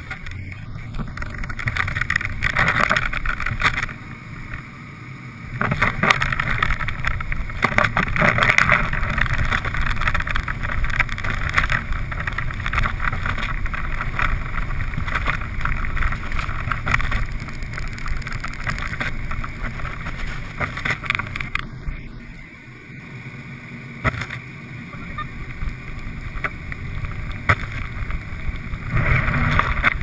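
Car driving along snow-covered streets: a steady rumble and hiss of engine, tyres and wind with many short crackles, briefly quieter around 4 seconds and 22 seconds in.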